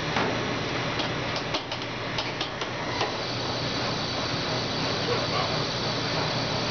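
Automated gantry machine over a modular plastic conveyor belt running, with a steady machine hum. A run of sharp clicks comes in the first three seconds, then a steady hiss from about three seconds in.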